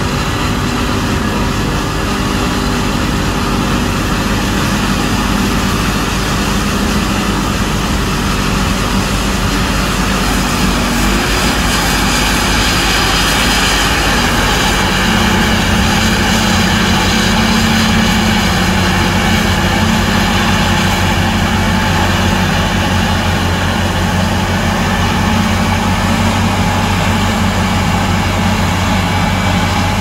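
New Holland FX38 self-propelled forage harvester running steadily under load, its engine and cutterhead chopping maize and blowing the chopped silage out through the spout into the trailer alongside, mixed with the tractor pulling that trailer. The engine hum shifts slightly in pitch about halfway through.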